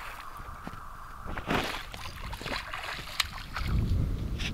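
Water splashing in a few short bursts as a hooked northern pike thrashes at the surface. Wind rumbles on the microphone near the end.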